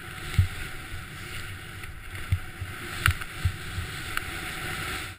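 Snowboard riding through deep powder snow, heard from a camera on the rider: a steady rush of snow and wind on the microphone, with a few low thumps from bumps along the way. The sound cuts off suddenly near the end.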